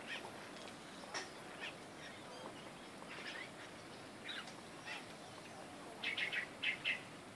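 Birds chirping in short, scattered calls over a faint outdoor hiss, with a quicker run of chirps near the end.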